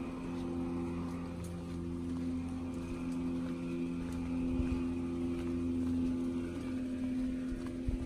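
Steady drone of a distant engine, holding an even pitch.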